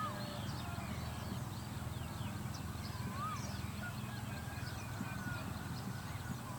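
Outdoor field ambience with birds calling: a clear rising-and-falling whistle repeated about every three seconds over many short high chirps, with a steady low hum underneath.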